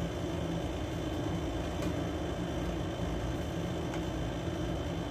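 A steady mechanical hum with an even background noise, and a faint click about two seconds in.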